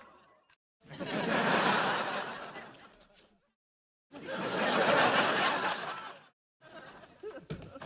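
Canned studio-audience laughter: two separate laugh-track clips, each swelling up and fading out, with dead silence between them. A quieter, sparser clip begins near the end.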